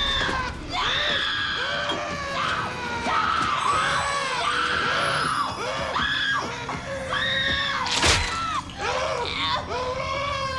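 High-pitched screaming, one long scream after another, with a sharp bang about eight seconds in.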